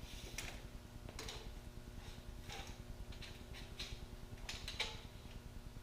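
Faint scattered clicks and taps of a tape measure being pulled out and handled while measuring from the back of a mitre saw to its front knob.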